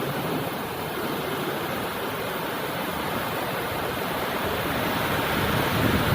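Steady rainfall: a dense, even hiss with no break, swelling slightly near the end.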